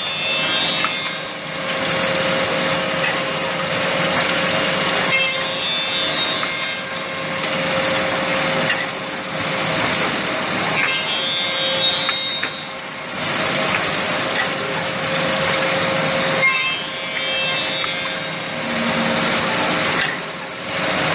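A double-end CNC tenoning machine at work: spindle motors running with a steady hum while the cutter heads and spinning bristle brush wheels machine and brush wooden parts. The noise swells and dips in cycles every three to four seconds as pieces pass through.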